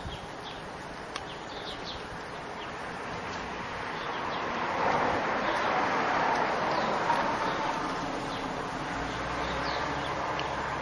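Outdoor ambience: a steady rushing noise that swells through the middle and eases off again, with scattered short bird chirps.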